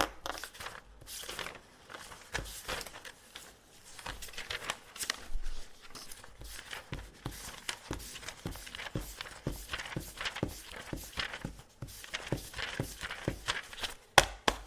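Pen scratching quick marks on test paper, a dense run of short strokes with paper rustling, and a sharper tap just before the end.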